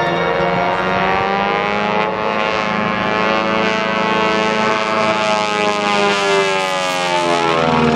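Aircraft engine noise from a plane flying past overhead, with a slow sweeping, phasing whoosh as it moves across the sky.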